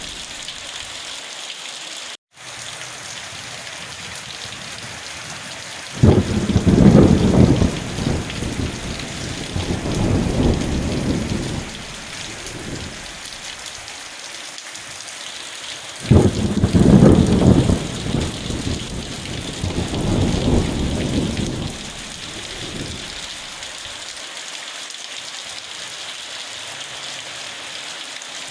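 Steady heavy rain with two rolls of thunder, each starting suddenly with a deep rumble and dying away over about five seconds, about six and sixteen seconds in; another roll begins at the very end. The audio drops out for an instant a little over two seconds in.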